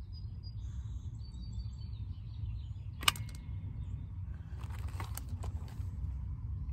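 Outdoor ambience: a steady low rumble with faint bird chirps, one sharp click about three seconds in, and a few lighter clicks and rustles a little later.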